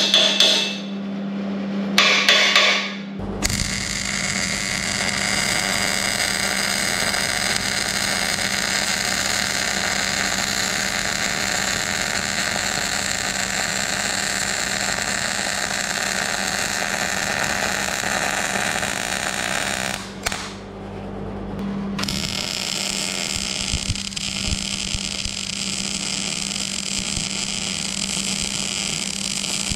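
A few hammer taps on steel at the start, then a MIG welding arc crackling steadily as a steel tube leg is welded to the table frame. The arc stops for about two seconds near two-thirds of the way through and then resumes.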